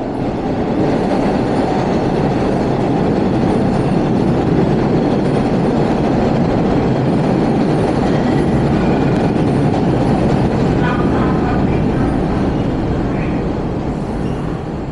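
MBTA subway train running into an underground station, its wheels rumbling on the rails. The sound builds over the first second, holds loud, and eases near the end, with a few short wheel squeals about nine to thirteen seconds in.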